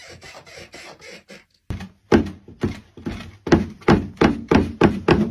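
Studio foley for a love scene: faint quick taps, then a steady run of loud thuds, about two a second.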